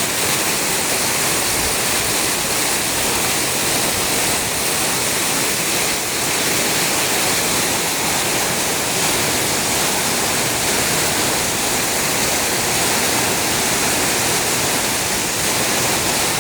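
Heavy rain pouring down in strong wind: a steady, even rush with no breaks.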